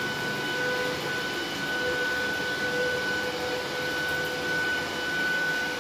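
A machine running steadily: a high, constant whine over an even hiss, with a lower tone that comes and goes.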